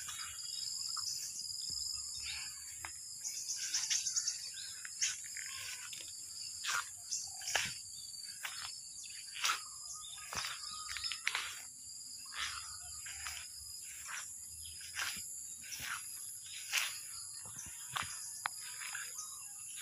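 Insects droning steadily at a high pitch, with short sharp chirps scattered irregularly throughout.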